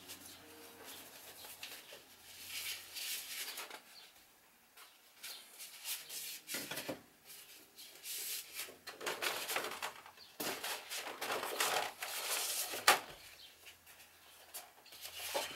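Sheets of paper rustling and being shuffled in short, irregular bursts, with one sharp tap late on.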